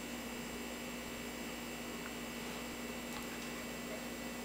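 Low steady hum over a faint even hiss: background room tone, with a couple of very faint ticks.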